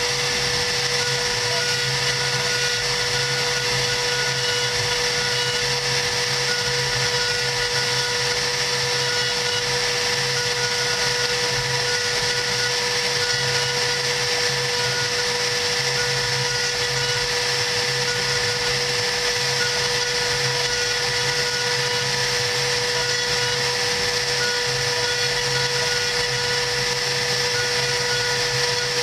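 CNC router spindle running steadily while its engraving bit cuts lettering into 3 mm cardboard: a constant high whine over a steady hiss, with a fainter higher tone that comes and goes as the machine moves.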